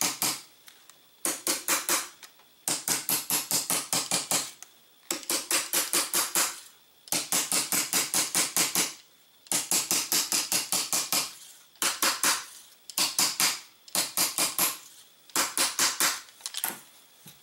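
Rapid runs of sharp clicks, about seven a second, each run lasting one to two seconds with short pauses between, as the gun is being put back together.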